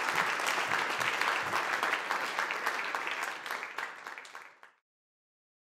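Audience applauding, many hands clapping together; the applause fades down over its last couple of seconds and then cuts off to silence near the end.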